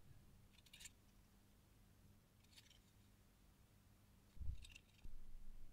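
Near silence with a few faint rustles and ticks from hands handling a circuit board, and a soft low bump about four seconds in.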